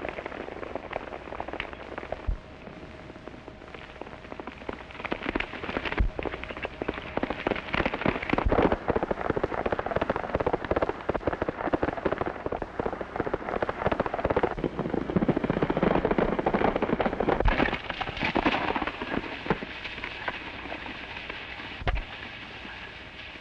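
Many horses galloping, a dense clatter of hooves, with a few sharp shots standing out from it at scattered moments.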